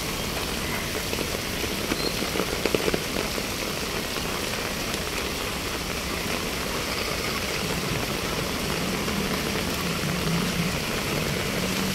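Heavy rain falling steadily, an even hiss of rain on the street.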